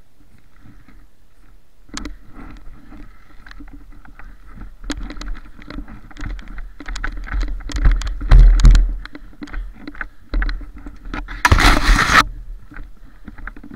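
Rustling and knocking as someone wades through deep snow and pushes past snow-laden branches, with handling knocks on the camera and low rumble on the microphone. A loud rushing burst comes about twelve seconds in.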